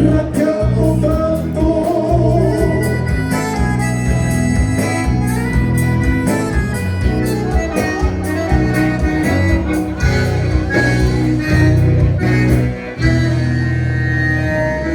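Live gaúcho dance music from an accordion-led regional band, playing an instrumental passage with a steady bass beat and settling into held chords near the end.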